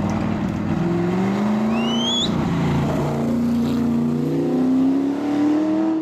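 Cobra-style roadster's engine accelerating past, its pitch climbing, dropping briefly about two and a half seconds in, then climbing again as the car pulls away. A short rising chirp sounds about two seconds in.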